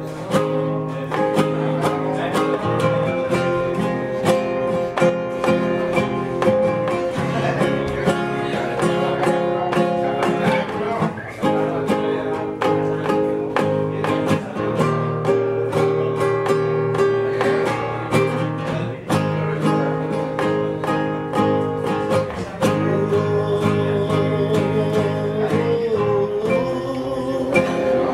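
Music track of acoustic guitar picking in a country style, with a voice singing over it.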